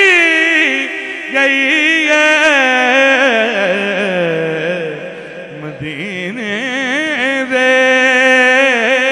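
A man singing a naat, drawing out long, wavering, ornamented notes. About halfway through the voice sinks lower and quieter, then climbs back up.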